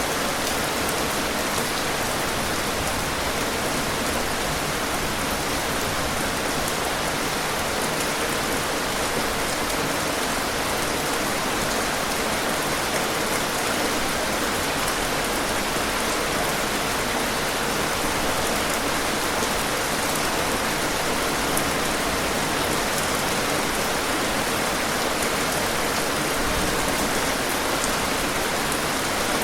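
Steady rain falling on a surface, an even hiss of many drops with no pauses or thunder.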